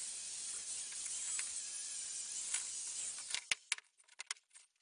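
Angle grinder working the face of a welded stainless steel hinge plate, a steady hiss that cuts off about three seconds in. Then several sharp clinks as the steel plates are handled.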